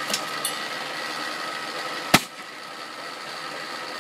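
Riding lawn mower's small engine running with a steady, rattly drone, with a smaller pop near the start and one sharp, loud bang about two seconds in: a backfire. The engine runs a little quieter after the bang.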